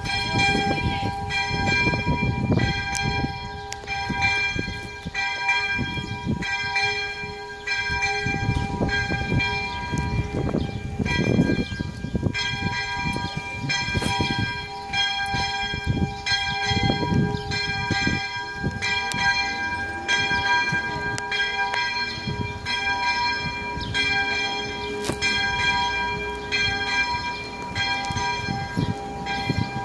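Level-crossing warning bell ringing on and on, its strikes repeating steadily, warning of an approaching metro train. A low rumble rises and falls underneath.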